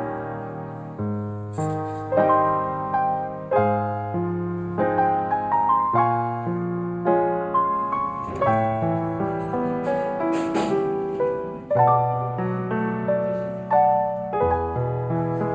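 Background music: a slow solo piano piece, each note struck and left to ring and fade, with low bass notes under a gentle melody.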